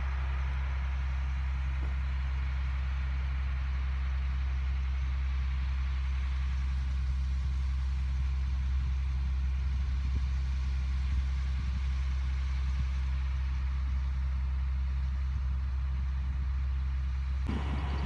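Farm tractor engine idling steadily, a low even hum, shifting slightly near the end.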